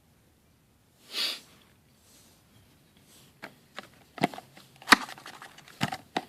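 A short sniff about a second in, then the knife's packaging being handled and opened: a run of sharp clicks and knocks, the loudest about five seconds in.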